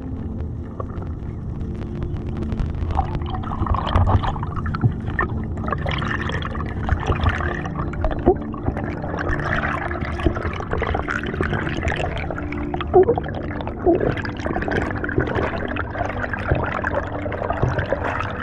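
Underwater water noise around a diver's camera: gurgling and bubbling with scattered small clicks, growing busier a few seconds in, over a faint steady low hum.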